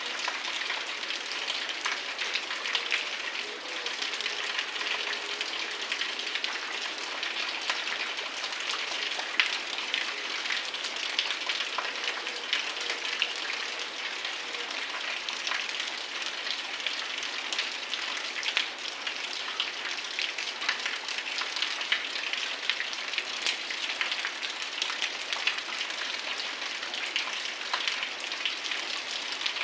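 Heavy rain falling steadily, with many individual drops ticking close to the microphone.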